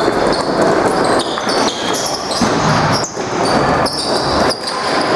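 Box lacrosse game play echoing in an arena: scattered knocks and thuds of the ball, sticks and players moving over the floor, with short high squeaks and voices in the background.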